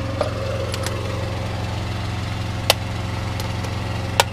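Engine idling with a steady low hum. A few sharp clicks, two of them louder, come from the plastic scale display unit and its case being handled.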